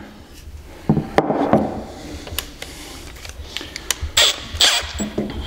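Small sharp clicks of a drill bit and cordless drill being handled, then a rasping ratchet a little past four seconds in as the drill's keyless chuck is twisted by hand to clamp the bit.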